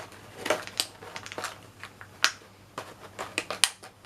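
Plastic parts of a snap-fit model airliner kit being handled: a string of light clicks and taps with some rustling, the sharpest about two seconds in and near the end.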